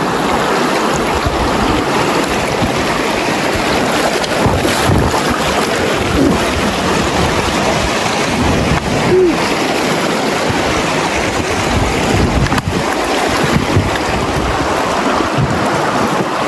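Steady rush of flowing river water from the rapids, with an uneven low rumble of wind buffeting the microphone.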